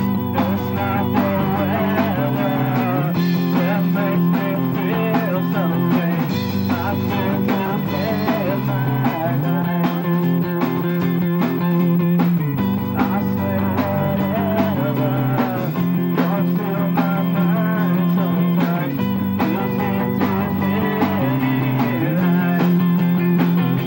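Amateur rock band playing live: two electric guitars, bass guitar and drum kit running through a repeating riff, the chords changing every few seconds.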